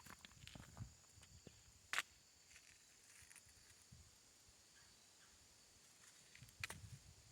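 Faint, scattered footsteps on a stony, gravelly beach: a few sharp clicks of stone underfoot, the loudest about two seconds in, with more steps near the end.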